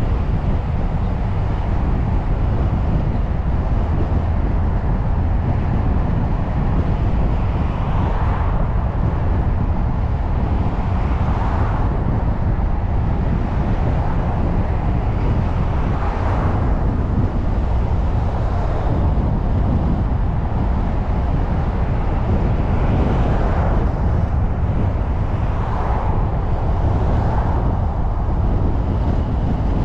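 Steady low rumble of a car driving along a city street: road and engine noise. Other traffic swells up and fades several times as it passes.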